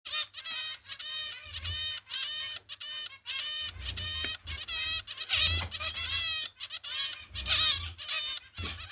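Zebra finch chicks begging to be fed: short, high-pitched calls with many overtones, repeated a few times a second without a break.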